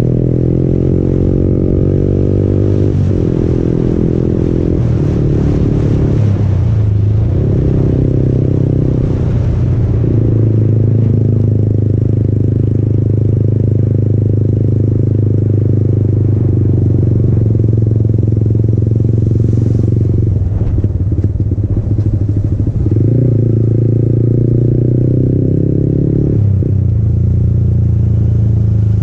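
Yamaha MT-15's single-cylinder engine running through an aftermarket Akrapovic exhaust under way. Its note climbs over the first few seconds, then drops and picks up again several times as the throttle is rolled off and on through gear changes, with steady running in between.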